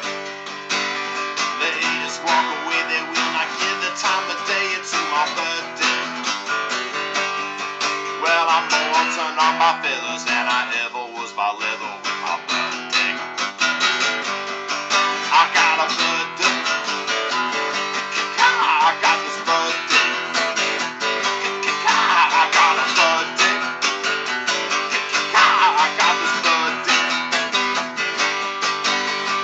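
Acoustic guitar strummed in a steady rhythm through an instrumental break of a rock-and-roll song, with a few higher bent melody notes over the chords.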